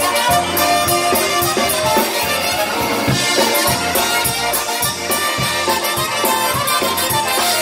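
Live polka band playing an instrumental passage between vocal verses: accordions carrying the tune with trumpet and clarinet, over electric bass and a steady drum beat.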